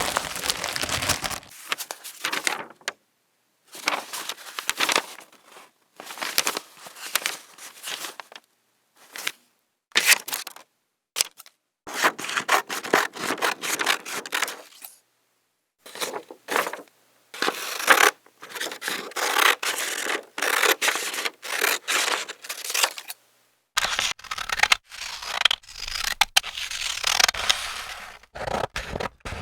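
A run of short, separate paper sound effects with brief silences between them: sheets of paper being cut with scissors and torn. Each take lasts from under a second to a few seconds.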